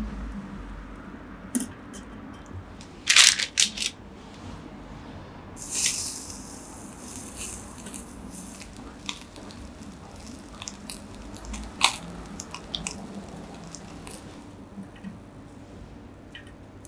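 Skewered salmon grilling over charcoal in a small clay grill: scattered crackles and pops, with a loud cluster of sharp pops about three seconds in and a short hiss about six seconds in, then finer crackling that thins out.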